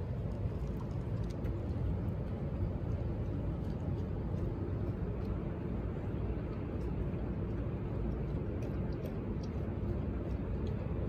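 A dog lapping milk from a plastic tub, faint irregular wet clicks over a steady low rumble.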